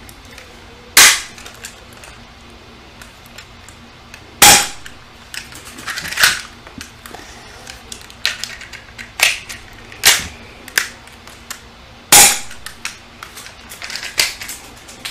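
Spring-powered airsoft pistol (Elite Force HK VP9) firing single shots: sharp snaps a few seconds apart, the three loudest about 1, 4.5 and 12 seconds in. Quieter plastic clacks come between them as the slide is cocked for each shot.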